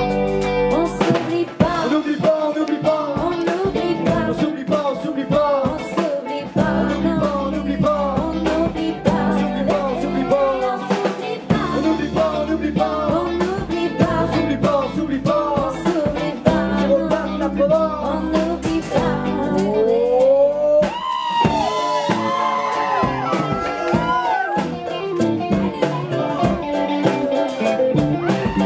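Live rock band playing: drum kit, electric guitars and accordion, with some singing. From about 19 seconds in, a lead line with long sliding notes comes to the fore.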